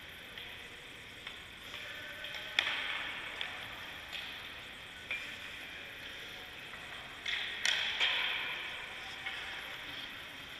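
Hockey practice on indoor ice: sharp clacks of sticks and pucks, echoing in the arena, over the hiss of skates on the ice. There is one loud clack a couple of seconds in and a quick cluster of several about three quarters of the way through.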